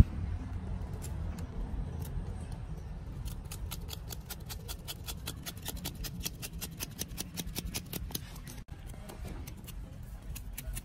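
A kitchen knife cutting through the stiff, spiky hairs of a rambutan fruit, giving a quick run of crisp clicks, several a second.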